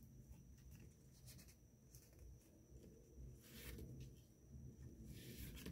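Faint rustling of paper as junk-journal pages and tags are handled: a few short rustles, the longest about three and a half seconds in and just before the end, over a low steady hum.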